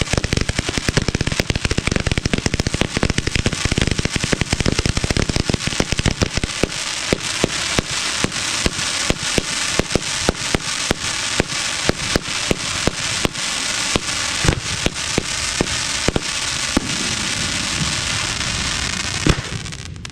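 Aerial fireworks bursting in quick succession. A dense volley of bangs comes first, then sharp separate reports about three a second over continuous crackling, which stops abruptly near the end.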